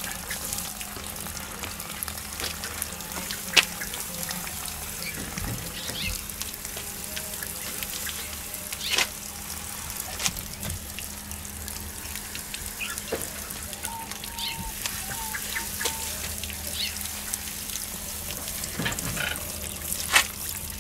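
Garden hose spray nozzle hissing steadily at low pressure as water is sprayed onto the pumice substrate of a freshly repotted bonsai, with three sharp clicks along the way.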